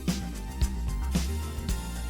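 Background music with a steady funky beat: bass and drum hits about twice a second.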